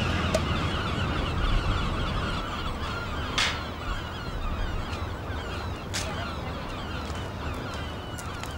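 Dense, continuous chattering of many birds, over a low steady rumble, with two sharp clicks a few seconds apart.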